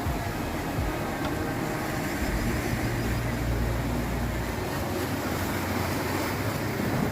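Sea waves breaking and washing over rocks, a steady rushing surf, with a stronger low rumble from about two to four and a half seconds in.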